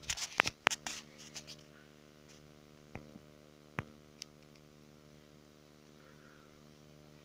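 Handling noise: brief rustling and several sharp clicks in the first second and a half, then a few isolated clicks, over a faint steady low hum. No chainsaw is running.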